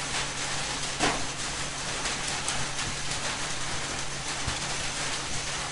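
Steady background hiss of the recording with a low electrical hum under it, and a single short click about a second in.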